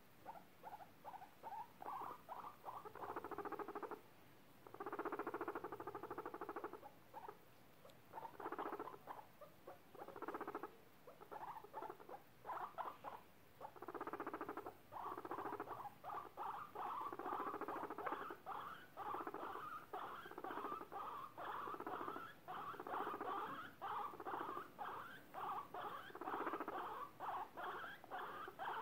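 Guinea pig purring while being stroked: a low buzzing sound in short repeated bouts. The bouts come closer together and run almost continuously in the second half.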